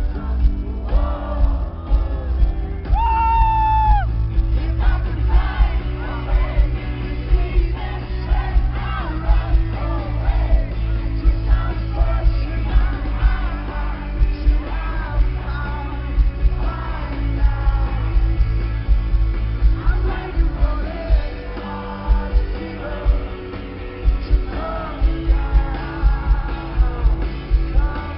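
Live rock band playing a song, with drums, bass, guitars and a sung vocal, along with shouts and yells. One loud held voice stands out about three seconds in.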